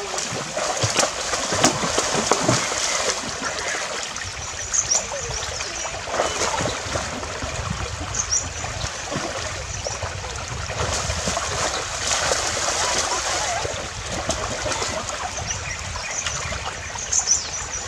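Water splashing and churning, with irregular sharp splashes, as two people thrash and grab with their hands in waist-deep water.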